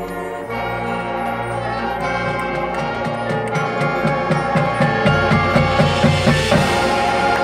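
Marching band playing a loud, building passage: brass hold sustained chords while a steady drum beat joins about halfway through. The music swells to a peak near the end.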